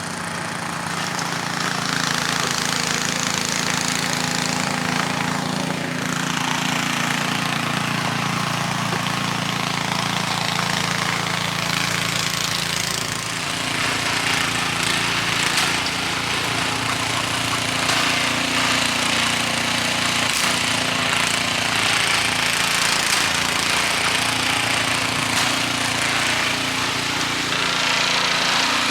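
Gas snowblower engine running steadily under load, with a rushing noise that rises and falls over its hum.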